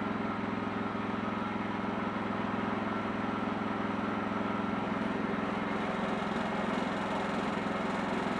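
Wood-Mizer portable sawmill's engine running steadily at an even speed.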